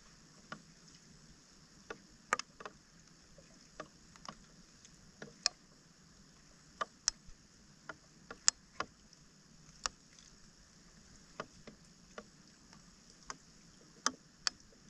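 Hands clearing debris out of a flooded roadside storm drain: irregular sharp clicks, taps and small splashes, one or two a second, over a steady high hiss.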